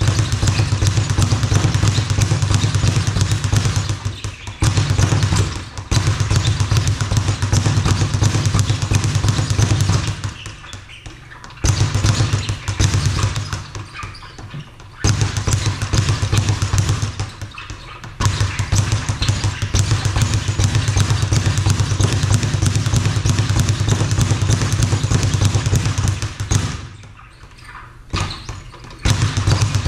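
Speed bag punched in fast rattling runs against its wall-mounted rebound platform, with short breaks about a third of the way in and again near the end.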